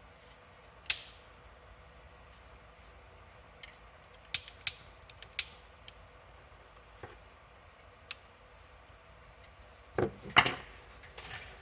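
Scattered sharp clicks and light taps of small tools being handled at a workbench, with a cluster a few seconds in and the loudest pair near the end.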